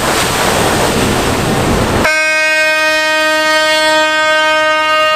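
A dense rushing noise, then about two seconds in a long, steady horn blast starts and holds on one pitch.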